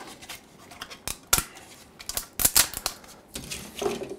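3D-printed plastic support material and raft pieces snapping and cracking as they are broken away from the print by hand: a series of sharp clicks and snaps, densest and loudest around the middle.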